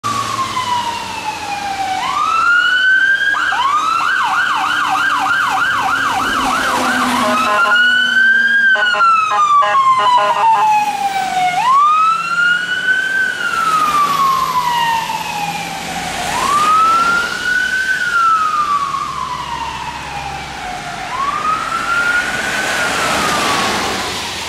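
Fire apparatus siren in a wail that rises quickly and falls slowly in cycles of about four to five seconds. About two seconds in it switches to a rapid yelp for several seconds. A short stretch of fast pulsing follows before the wail resumes.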